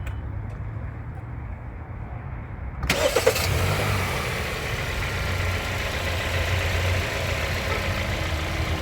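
2017 Kia Sorento engine cranked by its starter and catching about three seconds in, then idling steadily, started on a freshly installed AGM battery.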